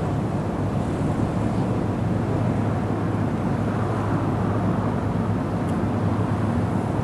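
Steady low rumble of passing road traffic, with no break and no distinct event standing out.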